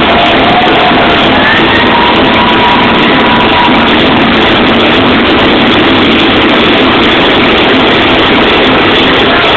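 Loud electronic dance music at a club, recorded on a phone so overloaded that it comes through as a dense, distorted wash with the beat and melody barely picked out.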